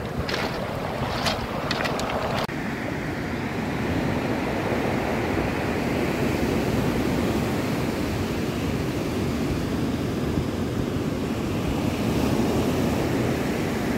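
Steady roar of ocean surf breaking on a stony beach, with wind noise on the microphone. A few sharp clicks fall in the first couple of seconds.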